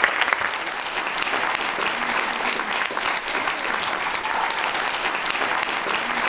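Audience applauding, many hands clapping in a dense, steady stream.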